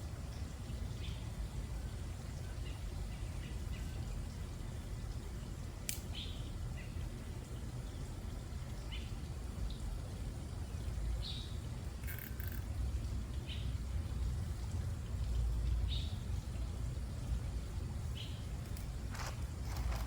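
Birds chirping, short high calls every second or two, over a steady low rumble.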